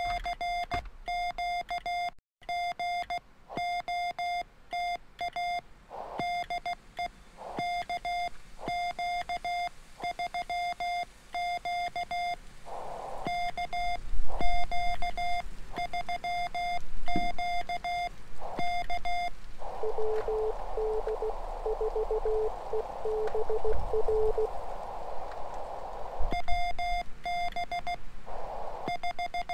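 Morse code sent with a paddle on an MFJ-9200 transceiver: its sidetone beeps in dots and dashes at one steady pitch through an external speaker. About two-thirds of the way through, the receiver's band hiss comes up with a fainter, lower-pitched Morse signal keyed in it, another station's reply, and the sidetone keying resumes near the end.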